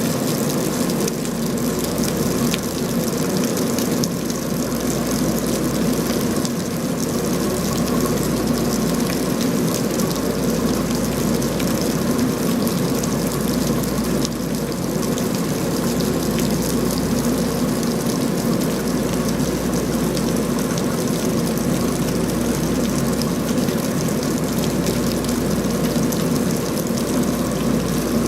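Rain falling steadily: an even hiss with a fine patter of drops.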